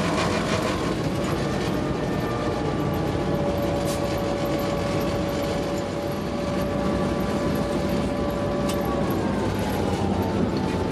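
Cab sound of an EMD GP9 diesel-electric locomotive working under power: the 16-cylinder 567 diesel running loaded with the traction motors drawing current, a steady din with a whine on top. The whine drops away about nine seconds in.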